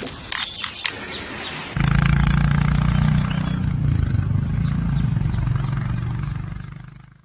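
Royal Enfield Classic 350's single-cylinder engine and exhaust running with a deep, steady, pulsing rumble. It comes in abruptly about two seconds in, after a quieter stretch with a few clicks, and fades out near the end.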